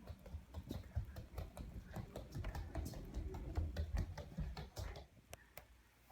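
Quick light footsteps and knocks of people moving about on a hard floor, over a low rumble that dies away about five seconds in.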